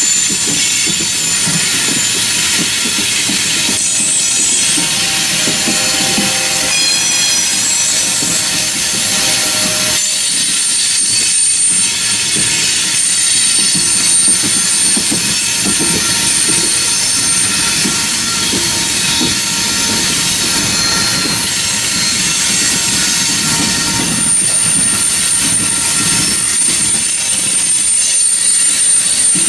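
Coal train gondola cars rolling past with a steady rumble and clatter of wheels on rail. A thin, high wheel squeal comes in about a third of the way through, drops away, and returns strongly near the end.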